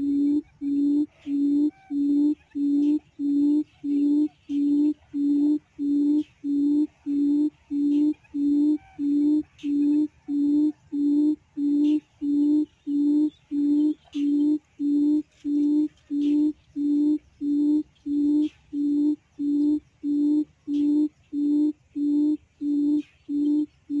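Quail call played on a loop as a trapping lure: the same low hooting note repeats at an even rate of about three notes every two seconds, identical each time.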